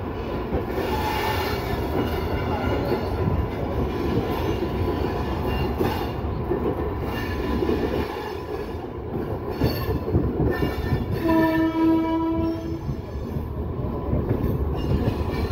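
Passenger express train running, heard from aboard: steady wheel-on-rail rumble and clatter. About eleven seconds in, a train horn sounds one steady note for about a second and a half.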